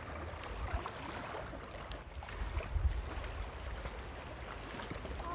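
Wind buffeting the microphone in an uneven low rumble, over a faint steady wash of water.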